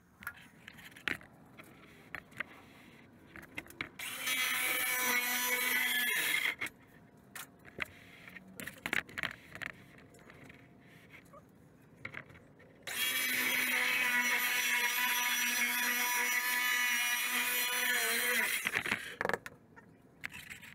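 Circular saw making two test cuts through a thin cabinet-skin panel: a short cut about four seconds in and a longer one of about six seconds starting near the middle, each a steady high motor whine under the blade's cutting noise. Clicks and handling knocks fall between and after the cuts.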